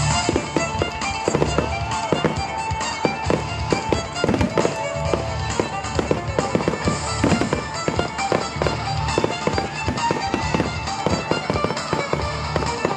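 Fireworks display: a rapid, irregular string of aerial shell bangs and crackles, many a second, going off over loud music.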